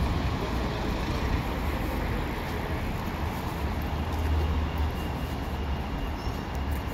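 City street traffic noise: a steady low rumble of passing vehicles with the general hum of the street.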